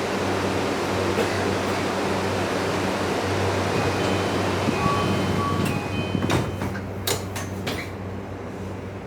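Cabin noise inside a Tokyu 3020 series electric train: a steady rumble with a low hum, easing about six seconds in, followed by a few sharp clicks.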